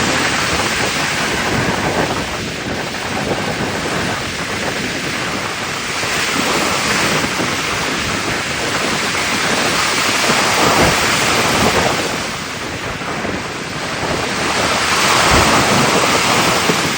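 Ocean waves washing over a pier: a continuous rush of surf that swells and eases every few seconds, with two low thuds, about eleven seconds in and near the end.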